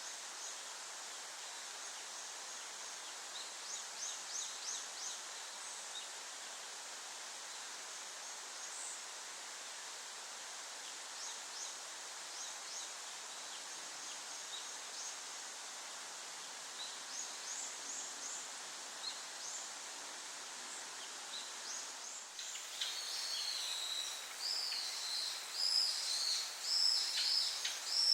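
Small songbirds calling over a steady background hiss: short high notes in quick series a few times, then, about two-thirds of the way in, a louder, varied warbling song.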